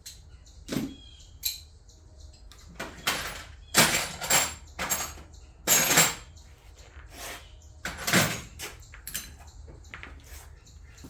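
Irregular clunks, clicks and metallic rattles of hand work on an ATV being torn down, with a cluster of loud knocks in the middle and another about eight seconds in.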